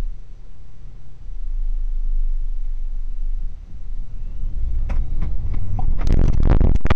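Low rumble of a car running, heard from the dashcam inside the car, then a few knocks about five seconds in and a loud crash with several impacts near the end as the car, in a sudden unintended acceleration, runs into a parked car and a building.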